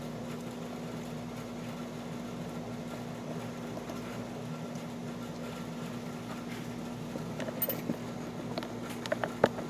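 Steady low hum in the background, then a few small sharp metallic clicks and taps in the last two seconds as a pin-tumbler lock cylinder and its tools are handled.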